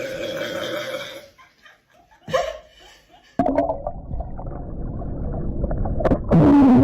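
Long, deep human burps brought on by drinking Sprite. One trails off in the first second or so, a low rumbling one begins about halfway through, and a loud, low-pitched burp with a slowly falling tone starts near the end.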